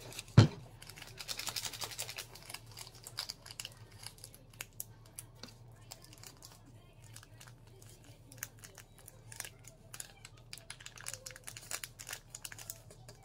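A single loud thump about half a second in, then a run of small clicks, taps and crinkling rustles as things are handled on a kitchen counter, next to a plastic shaker bottle.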